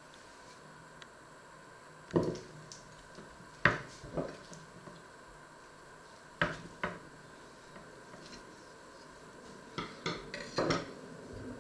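A steel carving fork and knife knocking and clacking against a wooden cutting board and counter while a meat roast is handled: about eight sharp knocks in small groups, with a cluster near the end.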